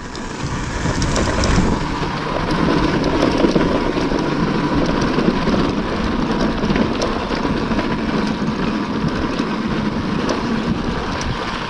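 Wind noise on the microphone over a dirt bike's engine running, steady throughout.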